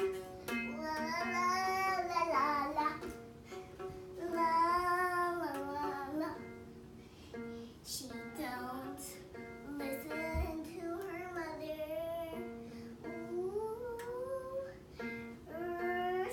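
A child singing in long, wavering phrases over a ukulele being strummed, its chords ringing on under the voice.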